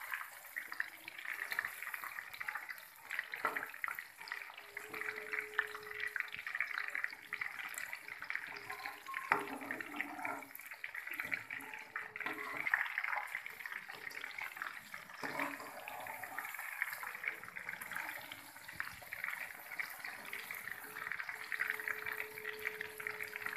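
Marinated meat pieces deep-frying in hot oil in a kadhai: a steady crackling sizzle, with a few clicks from the spoon stirring them.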